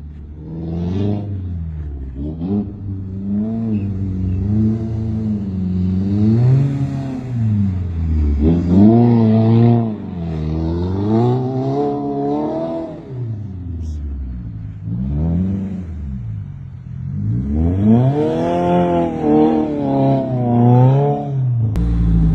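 Straight-piped, tuned VB Subaru WRX's 2.4-litre turbocharged flat-four revving up and down over and over as the throttle is worked, its pitch climbing and falling in repeated swells. Near the end a low, steady rumble takes over.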